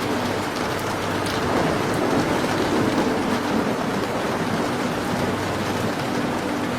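Steady rain pattering, an even rushing hiss that swells slightly for a couple of seconds in the middle, with a few faint crackles from a fireplace.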